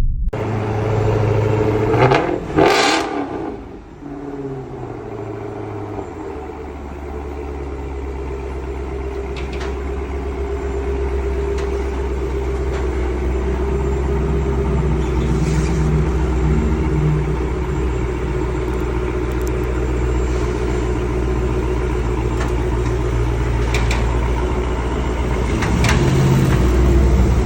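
A vehicle engine running steadily, its low hum slowly growing louder, after a brief loud swish about two to three seconds in.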